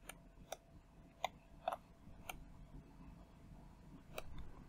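Computer mouse clicking: about six short, sharp clicks at uneven intervals as points are picked on screen.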